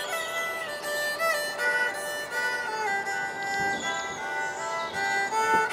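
Background music: a bowed string instrument like a fiddle playing a melody of held and gliding notes.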